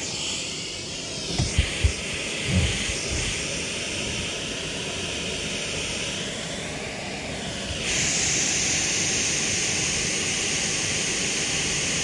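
Gas-station car vacuum running, its hose drawing air with a steady rushing hiss. A few soft thumps come about two seconds in, and about eight seconds in the hiss turns louder and brighter as the open nozzle points toward the microphone.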